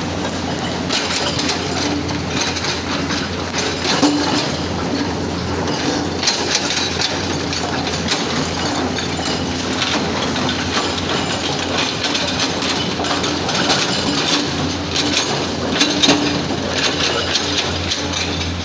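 Hydraulic rock breaker on a Komatsu excavator hammering boulders: a continuous run of rapid blows over the excavator's steady diesel engine.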